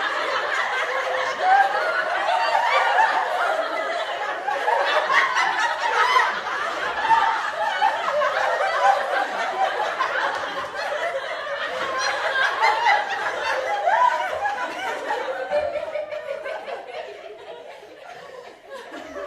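Group of people laughing together, many voices overlapping in one continuous stretch of laughter that slowly dies down over the last few seconds.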